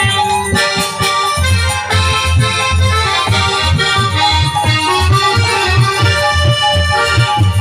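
Instrumental passage of devotional music: a harmonium sustains a melody over a repeated drum beat.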